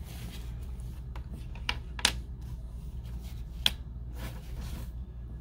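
Handling noises: scattered light clicks and taps, the two sharpest about two seconds in and about three and a half seconds in, with a brief rustle near the end, as a leather wristlet and a small paper card are handled over tissue paper.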